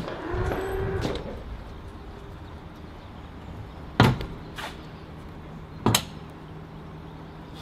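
Two sharp knocks about two seconds apart, over a low steady hum.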